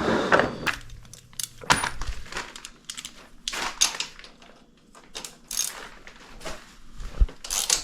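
Metal hand tools clinking and clicking on the rear-suspension hardware of a Honda XR250R dirt bike as a fastener is worked loose, which turns out not to be very tight. Irregular sharp clicks and knocks with short pauses between them.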